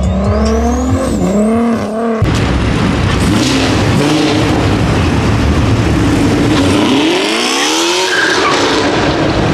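Car engine revving hard, the sound changing abruptly about two seconds in. It is followed by a Chevrolet Camaro accelerating out of a parking lot, its engine note climbing steeply about seven seconds in.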